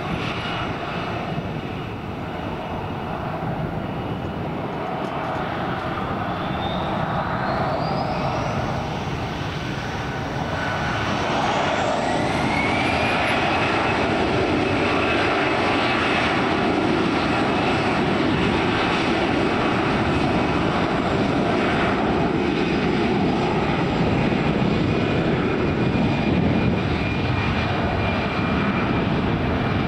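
Airliner engines running up with a rising whine. The sound gets louder about twelve seconds in, then holds steady.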